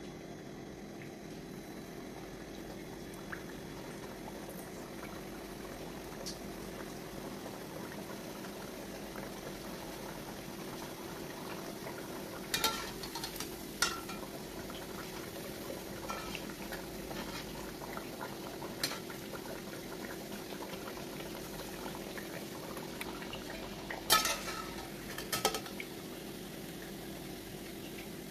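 Sweet dough cakes deep-frying in hot oil in a steel pot: a steady sizzle and bubble. A metal slotted spoon clinks against the pot several times, in a cluster about halfway through and again, loudest, near the end.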